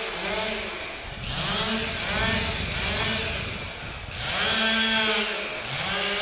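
Two-stroke chainsaw revving up and down again and again, its pitch rising and falling with each throttle blip. It runs in louder, rougher spells starting about a second in and again past the four-second mark.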